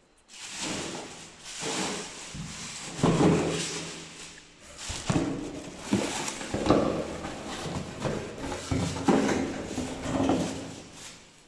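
Hard plastic parts and packaging being handled: an irregular run of scrapes, rattles and knocks, with a few sharp clicks about five and six seconds in.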